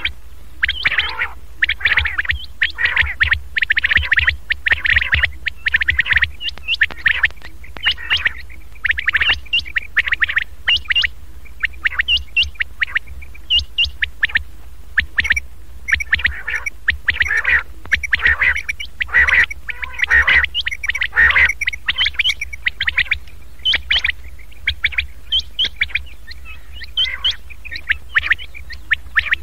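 Common quail calling: rapid, overlapping short chirping and rasping 'kerak' notes in quick clusters, with a steady low hum underneath. It is a lure recording played to draw quail in for trapping.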